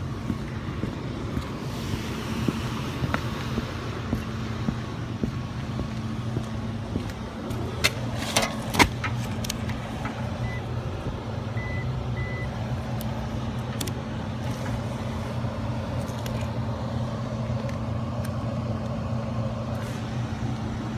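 Steady low hum of running rooftop HVAC machinery. A cluster of sharp clicks comes about eight to nine seconds in, and three short high beeps follow a few seconds later.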